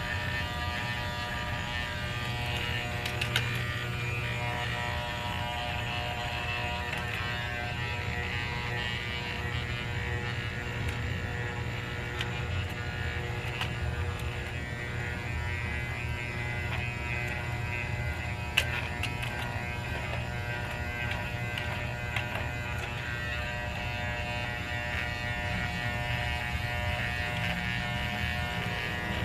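Electric pet hair clippers buzzing steadily as they shave a small dog's coat, with a couple of sharp clicks.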